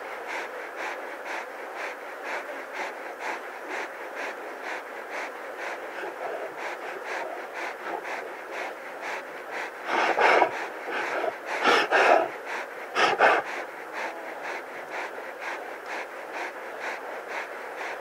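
Lion panting rapidly and steadily at about three breaths a second, a sign of it cooling itself in the heat. About ten seconds in come three louder, longer breaths, a couple of seconds apart.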